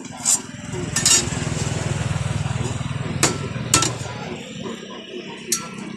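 Metal spatula clinking and scraping on a flat round roti griddle, with about five sharp metallic clinks. A steady low rumble runs underneath from about a second in until about four seconds in.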